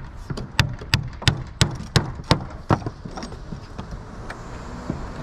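Claw hammer driving nails through a small plywood patch into old wooden roof plank sheathing: about eight sharp strikes, roughly three a second, stopping about three seconds in.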